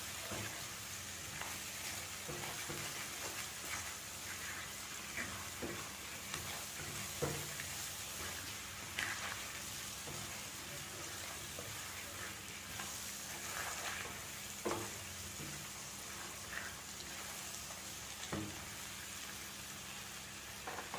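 Food sizzling steadily in hot oil in a cooking pot, with a spoon stirring and scraping, giving occasional short knocks against the pot.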